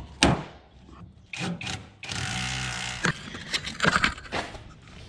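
Spanner and loosened bolts clinking and knocking against a truck's rusty steel chassis as the last bolts come out, a series of sharp irregular knocks. About two seconds in, a steady rushing noise lasts for about a second.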